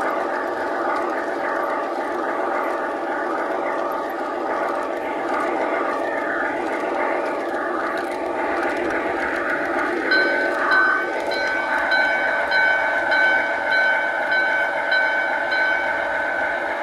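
G scale model train running along its track, heard close up from a car in the train: a steady drone from the motor and wheels. About ten seconds in, a high ringing tone and a regular ringing pulse about twice a second join it.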